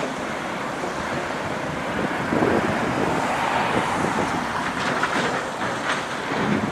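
Road traffic noise: a steady rush of passing vehicles that grows louder about two seconds in, with scattered short knocks.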